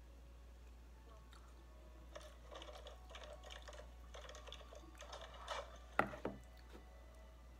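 A plastic food container is handled on a table, with a run of light clicks and rustling, then two sharp knocks about six seconds in.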